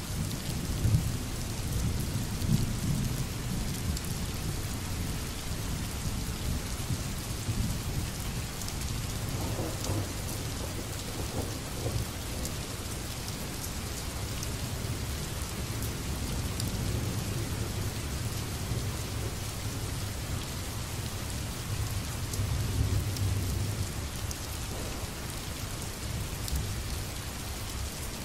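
Steady rain falling, with low rolling thunder swelling up a few times: near the start, about ten seconds in, and again a little past twenty seconds.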